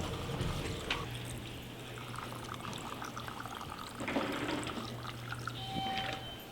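Water running and pouring into a plastic squeeze bottle as it is filled, with a steady low hum that starts about a second in.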